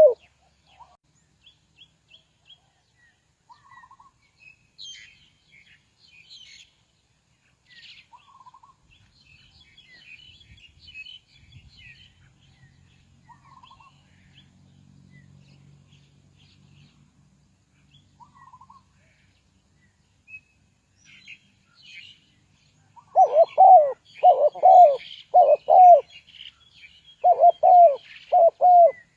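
Faint high chirps of small birds, then, about three quarters of the way in, a spotted dove cooing loudly: a quick run of short coos, each falling in pitch.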